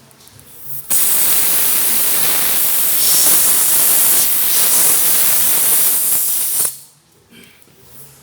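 Loud, steady hiss of air escaping from the punctured car tyre as the rubber repair plug is pushed into the hole. It starts abruptly about a second in and cuts off sharply near seven seconds.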